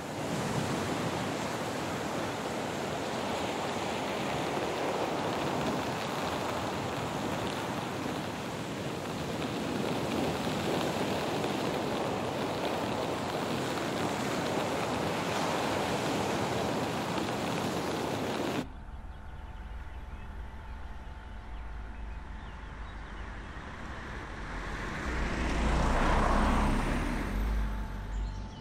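Sea surf washing onto a sandy beach, with wind, as a steady rush of noise. About eighteen seconds in it cuts off abruptly to a quieter low rumble with a faint steady hum, and a rumbling sound swells and fades near the end.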